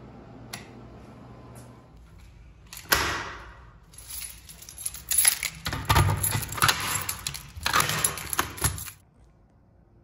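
Key ring jangling and clicking as a key works the reset lock of an activated Notifier NBG-12LX pull station, with rattles and clacks of the station's mechanism. A sharp clack about three seconds in; the rattling stops suddenly near the end.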